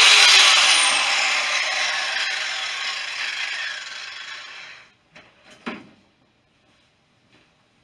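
A power tool winding down after being switched off: its pitch falls and its running noise fades away over about five seconds. A few light knocks and clicks follow.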